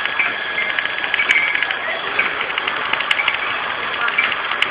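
Card packaging machine running: a steady mechanical clatter dense with rapid light clicks as printed wrapping film feeds through its rollers.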